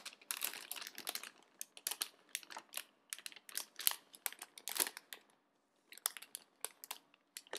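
Plastic model-kit runners and their clear plastic bag being handled: irregular crinkling and light clicking, with a short lull a little past the middle.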